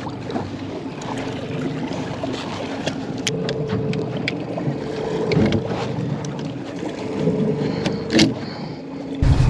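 Outboard motor running steadily at trolling speed, a constant hum, with water noise along the boat. A few sharp clicks and knocks come from handling a rod in its holder, and a louder low rumble sets in right at the end.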